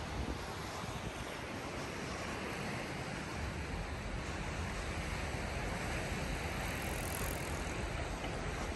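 Steady outdoor background noise: an even rushing sound with a low rumble underneath.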